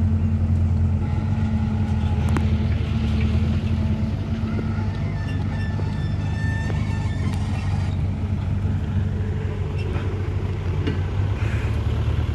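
Diesel engines of a working excavator and a dump truck running steadily, a low drone, with a few short knocks as the excavator loads soil into the truck.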